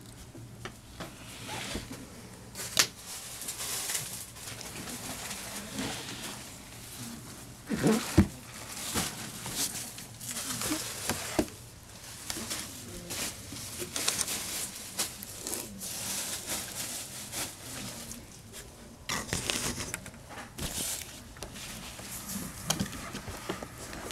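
Handling noise close to the microphone: irregular rustling and scraping with scattered light knocks as the bisque doll and its dress are moved about, the loudest knocks about 8 seconds in and again near 19–20 seconds.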